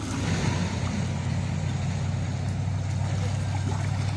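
A steady low motor hum that stops near the end.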